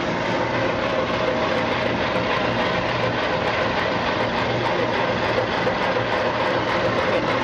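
Nylon-brush roller peeling machine running with a load of onions churning over its brushes: a steady motor hum under a dense, even rattle and hiss.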